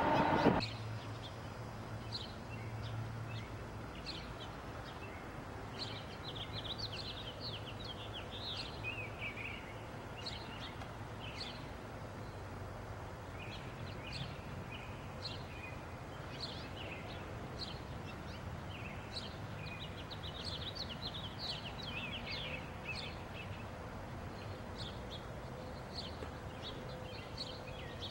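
Songbirds chirping over and over, many short quick calls, over a faint low steady hum of distant traffic or machinery.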